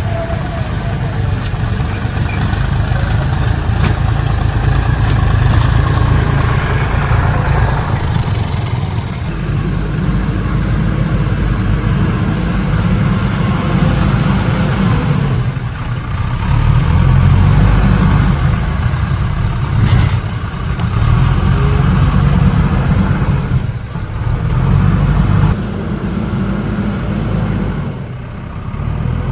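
Diesel engines of a JCB backhoe loader and tractors running close by, the engine note rising and easing off again and again as the backhoe digs and loads soil.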